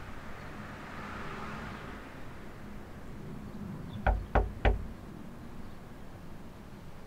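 Three quick knocks of a fist on a door, about a third of a second apart, some four seconds in.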